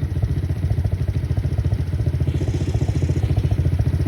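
ATV engine running with an even, rapid pulse, steady throughout and getting slightly louder toward the end.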